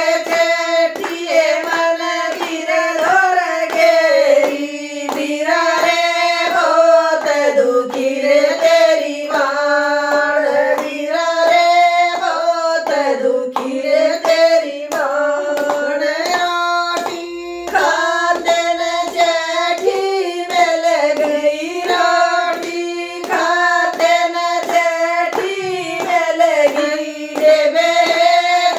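Women singing a Haryanvi jakdi folk song together, keeping time with steady, evenly spaced hand claps.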